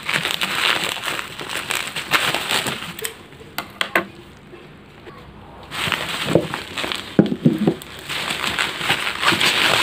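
Packaging being opened and handled: crinkling and rustling with many small crackles, in two spells with a short pause about four seconds in, and a few low knocks in the second spell.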